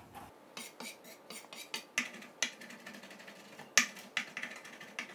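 A sharp knife mincing fresh herbs, its blade tapping the cutting board in irregular clicks, the loudest about four seconds in.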